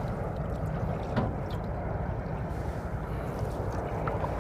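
Steady low rumble and rustle from a phone microphone carried in a chest pocket aboard a small sailing canoe, with a single light knock about a second in.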